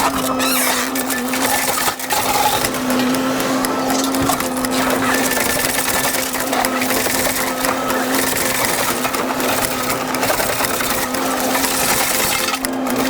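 Komatsu PC78US excavator's diesel engine running at working speed with a steady drone, under constant crackling and knocking of wooden debris being broken and handled.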